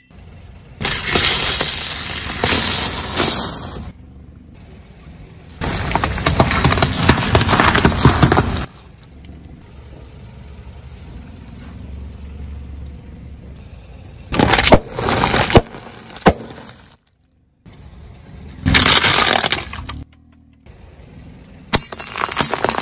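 A car tyre rolling over and crushing a series of objects, among them plastic toys and glass. There are about five separate loud bursts of cracking and breaking, each one to three seconds long, with a low rumble from the car between them.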